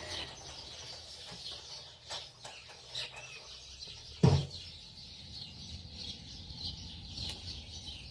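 Many small songbirds chirping and singing at once, some louder and some softer, as a continuous high chatter. About four seconds in, one loud short sound stands out above the birds.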